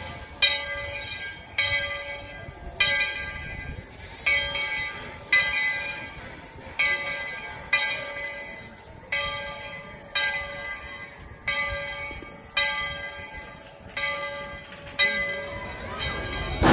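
Steam locomotive's bell ringing steadily, about one clang a second, each stroke ringing on and fading before the next. A locomotive bell rung like this warns that the train is about to move off.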